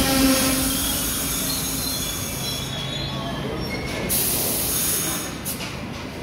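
R68 subway train braking to a stop at the platform: a rumble with thin wheel squeal that fades as the train slows, and a couple of short hisses near the end.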